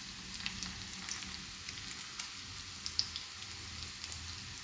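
Minced-chicken kababs shallow-frying in oil in a non-stick pan on a low flame: a gentle steady sizzle with scattered small pops and crackles.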